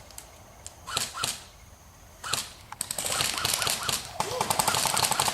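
Airsoft guns firing: a few single shots, then rapid full-auto bursts of sharp clicking reports through the last two seconds.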